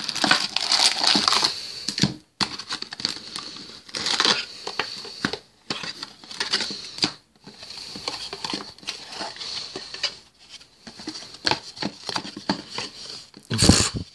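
Cardboard booster box being pried and torn open by hand: irregular crinkling, scraping and rustling of the card, with a louder rip near the end.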